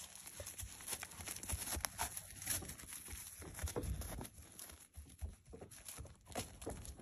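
Hoofbeats of a ridden Tennessee Walking Horse mare walking on grass: soft, irregular thuds and knocks.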